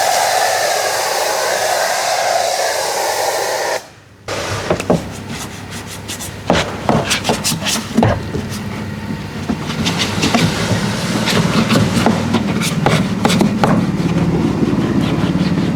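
High-pressure washer spraying with a steady hiss, cut off suddenly about four seconds in. After a brief lull come scattered sharp clicks and knocks over a low steady hum that grows louder near the end.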